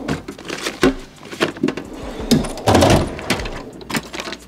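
Irregular knocks, scrapes and rustling from hands working on a car's front bumper.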